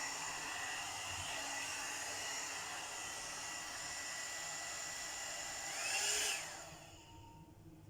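Premio 3-in-1 blower brush (hot air brush) running with a steady rushing hiss and a thin whine, then switched off about six seconds in, its sound swelling briefly and winding down.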